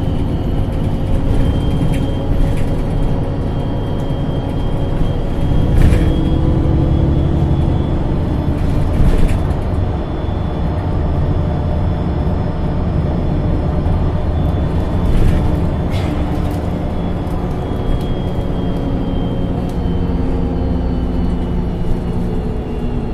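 MAN NG 273 T4 articulated city bus running on its LPG engine while driving, the engine note shifting in pitch several times under a thin high whine. A few sharp knocks or rattles come through along the way.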